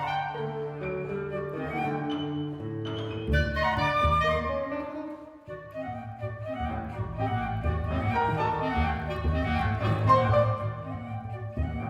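Contemporary chamber music from a quintet of flute, clarinet, electric guitar, piano and acoustic bass, with held and overlapping pitched notes. The texture thins briefly a little past halfway, then fills out again.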